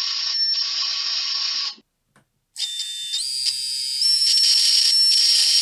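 Micro quadcopter brushless motor spinning with no propeller: a high whine that steps up in pitch in stages. It cuts out for under a second about two seconds in, then returns and climbs higher again. The motor's bearing is shot.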